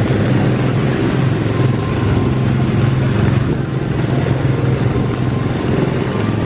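Steady low hum under an even wash of noise: the Tomorrowland PeopleMover's trains running along their elevated track in the rain.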